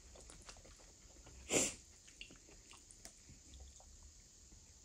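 Quiet close-up mouth sounds of a person eating, with small chewing clicks and smacks, and one short, sharp sniff through the nose about a second and a half in, the loudest sound.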